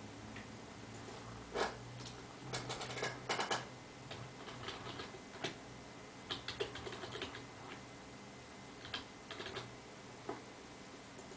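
Computer keyboard keys clicking in several quick bursts of typing with short pauses between, over a faint steady low hum.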